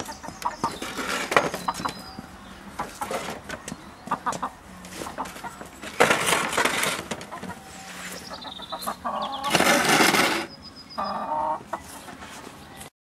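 Black Star chickens clucking, with scattered short clicks and scratches on the patio. Two louder rustling bursts come about six and ten seconds in.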